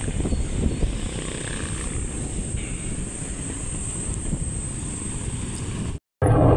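Steady engine rumble and wind noise from a moving road vehicle carrying the camera. The sound cuts out briefly about six seconds in and comes back louder.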